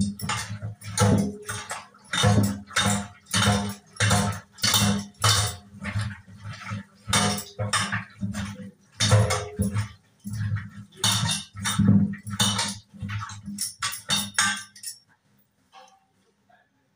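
A hand scrubbing and rubbing inside a stainless-steel pot in a steel sink, the metal clattering and knocking in rhythmic strokes about two a second. The strokes stop a couple of seconds before the end.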